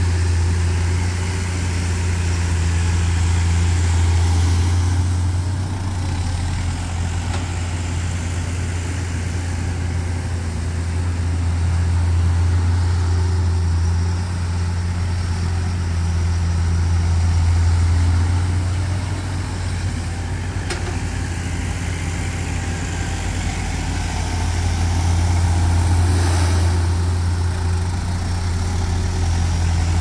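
Komatsu PC200 tracked excavator's diesel engine running steadily, its sound swelling and easing every several seconds as the machine works the soil pile.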